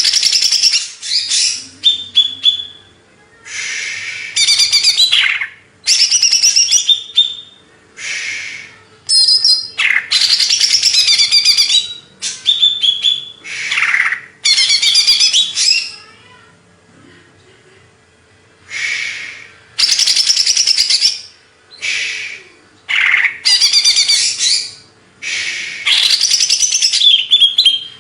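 Cucak ijo (green leafbird) singing loud, varied warbling phrases of a second or two each, separated by short pauses, with a longer pause a little past the middle.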